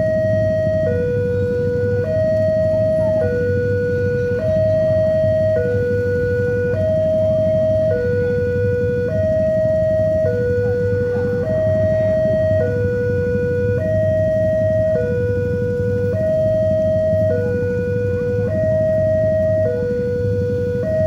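Railway level-crossing warning alarm sounding a steady two-tone high-low electronic signal, switching pitch about once a second. It warns that a train is approaching the crossing.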